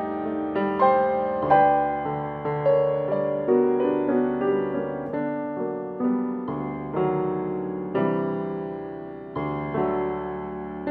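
Solo piano improvisation: chords and melody notes struck and left to ring and fade, a new one every half second to a second, with a longer chord dying away near the end before the next is struck.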